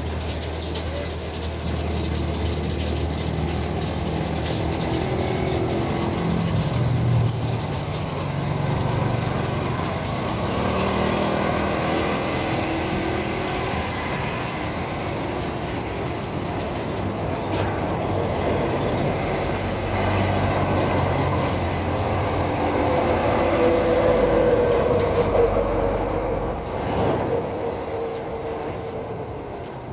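Steady street traffic noise: vehicle engines running, a low engine drone under a continuous hiss, growing a little louder about three-quarters of the way through.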